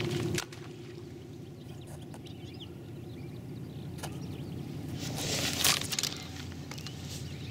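A motor running steadily in the background, a low hum that drops in level about half a second in. A sharp click comes about half a second in and another around four seconds, and a brief hissing rush comes about five and a half seconds in.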